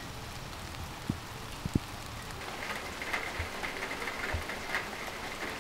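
Steady rain falling, with drops spattering into shallow puddles on stone and ground.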